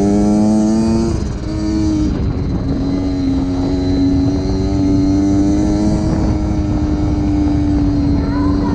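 Small motorcycle engine running: its pitch climbs, falls sharply about a second in, then holds nearly steady with a slow rise.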